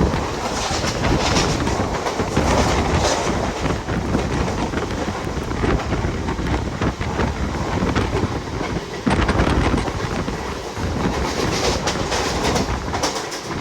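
Mumbai suburban EMU local train running at speed, its wheels rumbling and clacking over the rails, with wind noise on the microphone.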